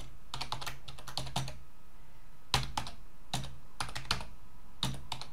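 Typing on a computer keyboard: a quick run of keystrokes, a pause of about a second, then slower, scattered keystrokes.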